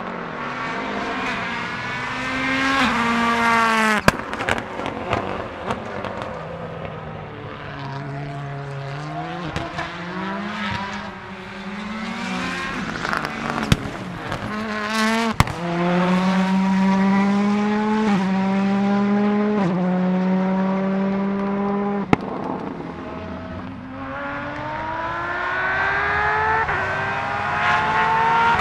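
Audi S1 EKS RX quattro rallycross car's turbocharged four-cylinder engine accelerating hard, its pitch climbing and dropping in quick steps through a string of upshifts. Sharp cracks come at several gear changes. Near the end the revs climb again as a car comes on.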